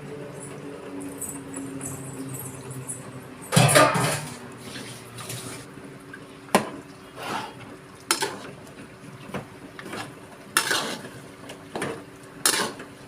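A metal spoon scraping and knocking against a cooking pot while chicken pieces are stirred into the masala, a handful of sharp clatters spread through, the loudest a few seconds in.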